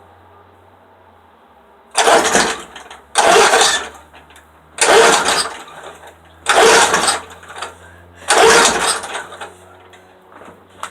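Lawnmower engine being pull-started five times in a row. Each tug of the recoil cord turns the engine over briefly and it dies away without catching: a failed cold start, though the owner says it has gas and good compression.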